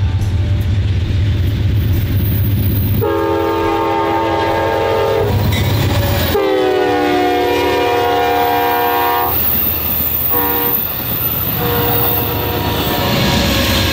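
Amtrak GE Genesis diesel locomotive sounding its multi-chime air horn in the grade-crossing pattern: two long blasts, a short one and another long one, the pitch dropping as the locomotive passes at speed. Under and after the horn the train rumbles past, with the clatter of the passenger cars' wheels.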